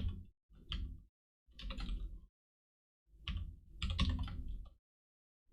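Typing on a computer keyboard: three short runs of rapid key clicks with pauses between them.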